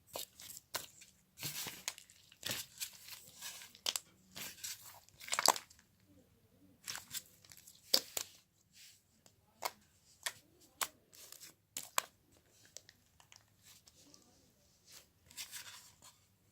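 Close handling noises: irregular rustling, crinkling and tearing sounds broken by many short, sharp clicks.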